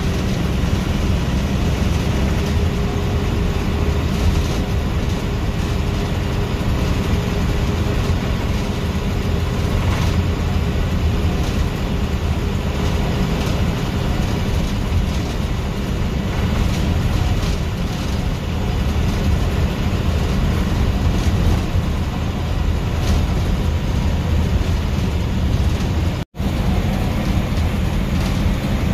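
Diesel bus running at highway speed, heard from the driver's cab: a steady, heavy engine drone mixed with road noise and the odd cabin rattle. Near the end the sound cuts out completely for a split second.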